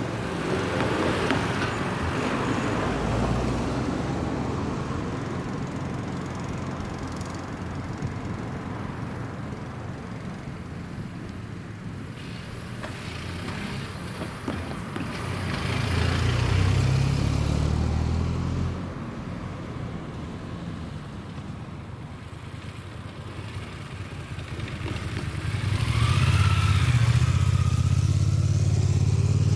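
Passenger cars driving past one at a time over a road–rail level crossing: a car engine and tyres pass about a second in and again around the middle. Near the end, another engine sound grows and stays loud.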